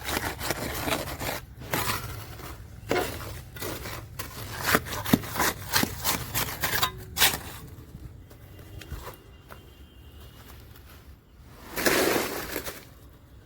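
Quick, irregular scrapes and knocks of tools working wet cement mortar around a sewer pipe. After about seven seconds it goes quieter, and one louder rushing scrape comes near the end.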